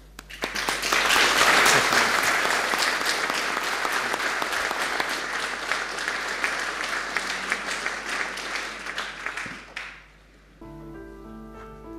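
Audience applauding, loudest at first and dying away about ten seconds in. Soft instrumental music begins near the end.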